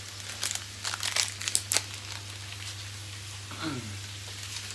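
Magic Sarap seasoning sachet crinkling as it is handled and torn open, with several sharp crackles in the first two seconds, over a steady low hum.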